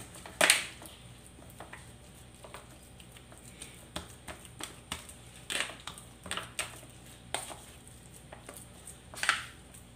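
A spoon mashing salted egg yolks in a disposable aluminium foil tray: irregular scrapes and taps of metal on foil, with a few sharper clicks scattered through.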